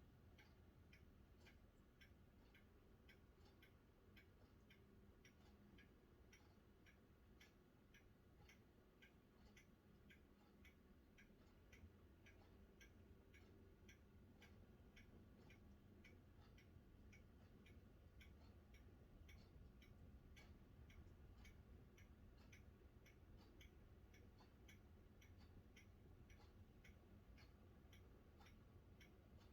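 Near silence with faint, even ticking about twice a second over a low background hum.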